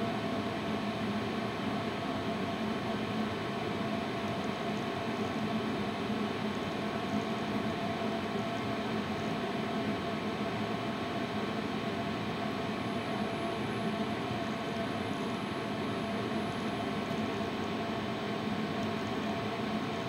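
Danube DD16 electronic tumble dryer running: a steady machine hum of the turning drum and fan as the load tumbles, with a few constant tones in the hum.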